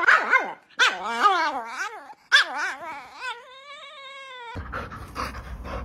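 Chihuahua howling: a string of short wavering yowls, then one long drawn-out howl that cuts off abruptly about four and a half seconds in.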